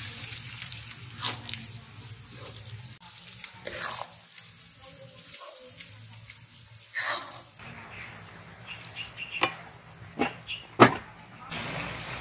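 Wooden spatula stirring and scraping a thick, sticky rice mixture in a metal pan, giving scattered scrapes and knocks, the loudest one about eleven seconds in.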